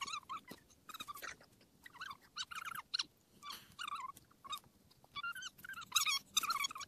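A person's voice sped up to a squeaky, chipmunk-like pitch, talking in quick, short phrases.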